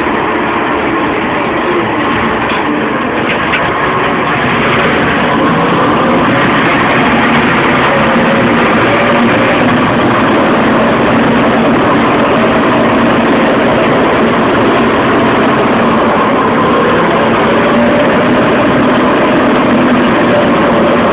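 Bulldozer's diesel engine running loud and steady with the machine's mechanical clatter, getting a little louder about four seconds in.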